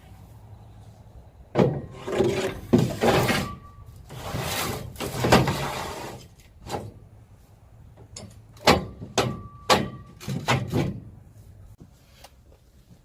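A series of clanks, knocks and scrapes of metal being handled and set down, a couple of the hits ringing briefly. The knocks cluster about a second and a half in and again from about eight to eleven seconds.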